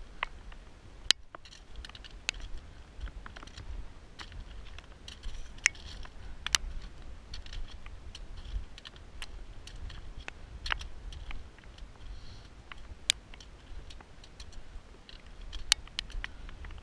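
Boots crunching on loose rock scree, with sharp, irregular clicks of trekking pole tips striking stone, over a low rumble of wind on the microphone.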